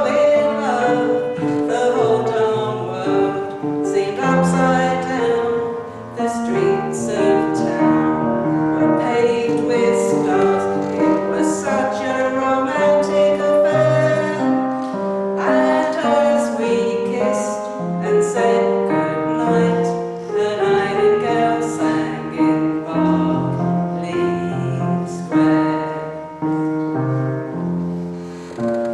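A woman singing a ballad with piano accompaniment.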